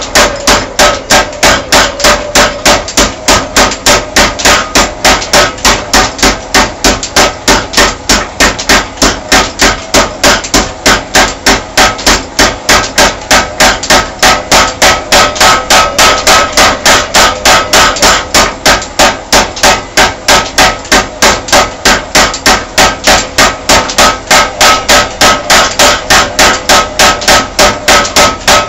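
Homemade junkyard power hammer pounding a red-hot steel bar in a steady, even rhythm of about three blows a second, each blow ringing.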